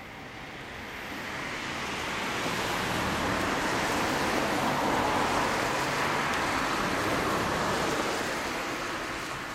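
A vehicle passing on the road: a rush of engine and tyre noise that builds over the first few seconds, holds, and fades away near the end.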